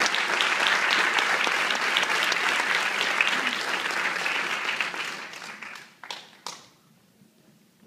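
Audience applauding, a dense patter of many hands clapping that dies away about five to six seconds in. A couple of last single claps follow just after.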